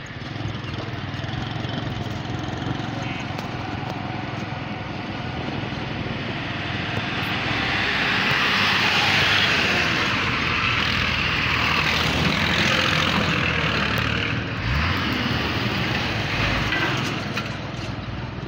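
Road traffic: a vehicle engine running steadily, with a louder rush of engine and tyre noise through the middle as a large truck passes close by, fading near the end.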